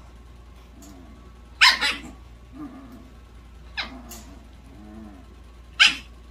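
Small dog barking: three sharp yips about two seconds apart, with soft low whimpers between them.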